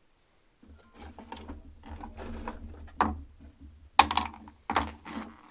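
Metal parts of a 1939 Farmall H carburetor and hand tools being handled during disassembly: a run of light clicks and clatter, with sharper knocks about three, four and five seconds in.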